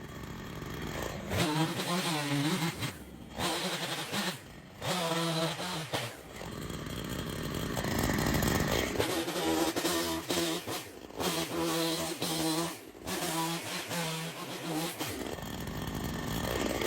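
Chainsaw running in short bursts, its pitch rising and falling as it revs, with a stretch of rougher noise about halfway through. It is broken several times by sudden brief gaps.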